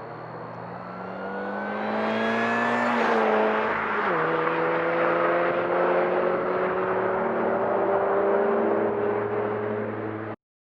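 An R53 Mini Cooper S, its 1.6-litre supercharged four-cylinder accelerating past, with the whine of its freshly serviced Eaton M45 supercharger climbing in pitch. The pitch drops sharply about four seconds in, then climbs slowly again.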